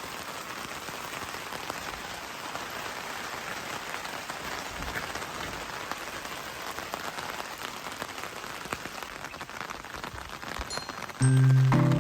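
Steady patter of rain, a dense haze of fine drops. Music starts about eleven seconds in.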